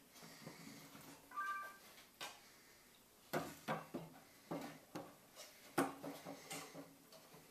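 Wooden pallet being shifted and set down on a wooden workbench: a run of separate wood-on-wood knocks and clunks, with a short squeak a little over a second in.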